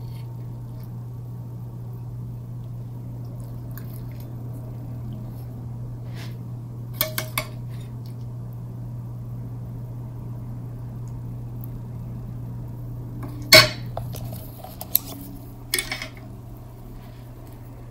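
Metal spoon clinking and scraping against a stainless steel pan and a ceramic plate while fish in sauce is served: a quick run of three clinks, one loud clink about three-quarters through, then a few lighter ones, over a steady low hum.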